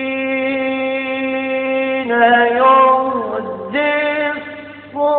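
A male voice chanting an Arabic religious ibtihal unaccompanied, in an old recording with a narrow, thin sound. He holds one long steady note, then about two seconds in breaks into ornamented, wavering melismatic runs that bend up and down.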